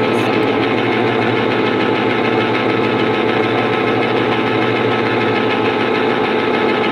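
Electric can opener running, its motor giving a steady hum as it cuts around a can lid.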